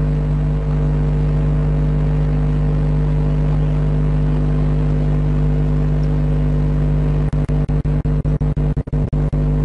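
Loud, steady electrical hum from a faulty microphone. It breaks up into rapid dropouts in the last couple of seconds.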